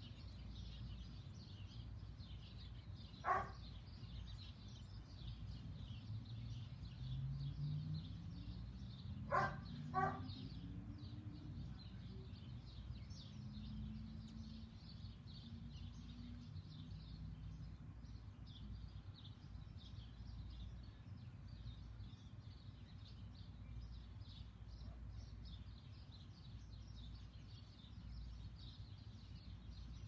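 Many small birds chirping and tweeting continuously in a high, busy chorus. Three short sharp sounds stand out, one about three seconds in and two close together about nine seconds in, and a faint low hum rises in pitch and fades away in the middle.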